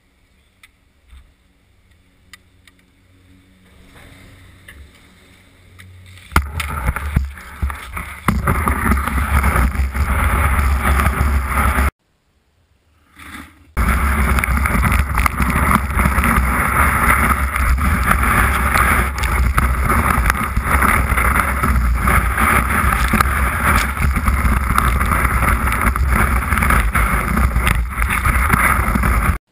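Skis running over packed snow, picked up by a camera mounted on the ski boot: a loud, steady scraping rumble with wind on the microphone. It starts about six seconds in, after a quiet stretch with a few faint clicks, and drops out briefly near the middle.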